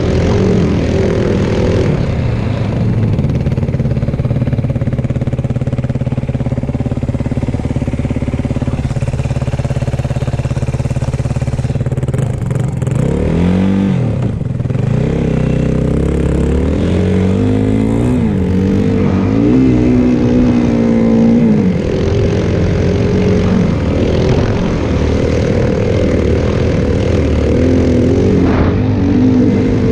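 Yamaha WR450F snowbike's single-cylinder four-stroke engine running under load, held steady at first, then revving up and down several times through the middle before settling again.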